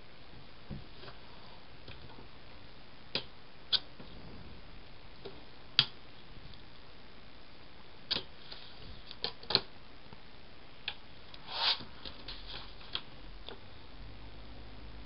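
Scattered light clicks and taps from hands handling a disc-bound paper planner, a plastic ruler and a roll of washi tape. A short rustle of paper comes about two-thirds of the way in.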